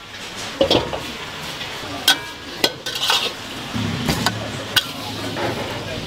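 A metal ladle and strainer scraping and knocking against a steel wok as crispy fried bits are stirred and scooped, with hot oil sizzling underneath. Several sharp clinks come at uneven moments.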